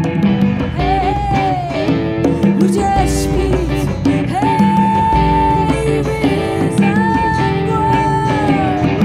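Live band music: a woman singing long held notes that slide down at their ends, over strummed acoustic and electric guitars.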